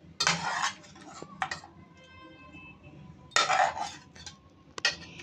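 Utensil scraping and clinking against a ceramic plate as boiled chicken pieces are moved around on it. There are two short scraping bursts, one near the start and one a little past halfway, and a few sharp clicks in between and near the end.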